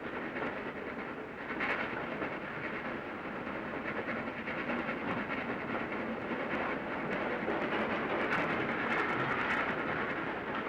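Flying Scotsman steam locomotive and its train running at speed, a steady rail and running noise that grows gradually louder as it accelerates.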